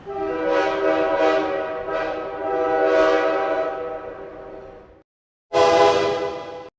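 Train horn of GBCR 4619 sounding a multi-note chord: one long blast of about five seconds that swells several times, then after a short gap a single short blast of about a second that cuts off abruptly.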